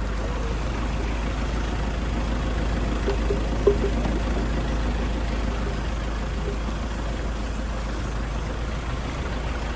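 Steady engine and road noise of a moving vehicle heard from on board, with a strong low rumble, and a single short knock a little under four seconds in.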